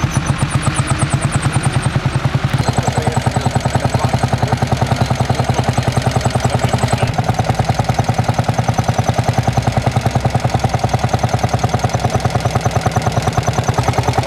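Lanz Bulldog tractor's single-cylinder two-stroke hot-bulb engine running with its slow, even beat, about five beats a second.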